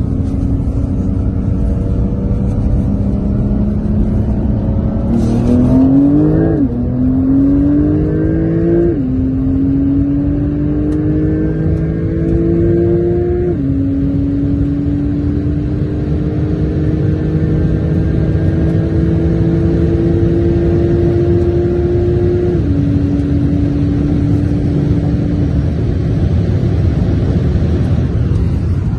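Porsche 992 Turbo S twin-turbo flat-six heard from inside the cabin under full acceleration. Its pitch climbs and drops back with each upshift, four times, over steady road and wind noise. After the last shift the engine note holds flat for a few seconds.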